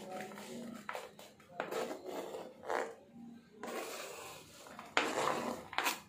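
Kitchen handling sounds: a series of short scrapes and knocks of chopped fruit and a utensil against dishes, the loudest near the end.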